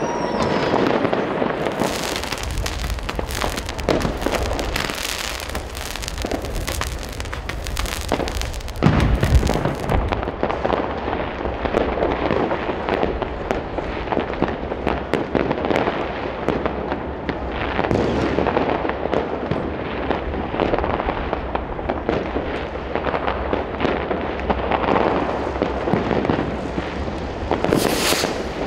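New Year's Eve fireworks going off all around: continuous crackling and popping of rockets and firecrackers, with many sharp bangs, a deep boom about nine seconds in and a burst of sharp cracks near the end.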